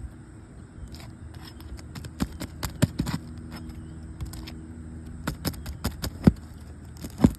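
Asphalt roof shingles being pried up and torn off with a metal tool: irregular sharp cracks, snaps and scrapes, the loudest about three, six and seven seconds in, with a faint steady hum underneath.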